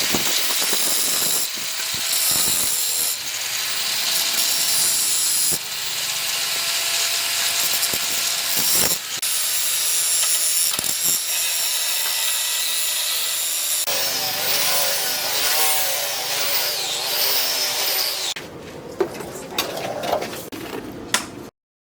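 Wood being sawn and worked in a series of short clips, a steady rasping sound with abrupt changes between clips. A different scraping sound with wavering pitch comes in about two-thirds through. A few sharp clicks follow near the end, then the sound cuts off to silence.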